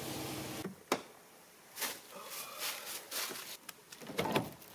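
Pickup truck engine running steadily, cutting off suddenly under a second in, then a sharp click. After that come irregular crunching footsteps in dry leaves, and knocks near the end as the truck's camper-shell rear window is handled.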